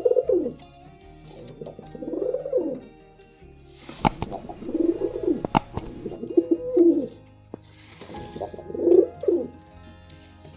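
Domestic pigeons cooing: a run of rolling coos repeated about every two seconds. Two sharp clicks come about four and five and a half seconds in.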